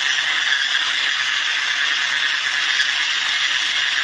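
Electric hand mixer running steadily, beating flour into cake batter.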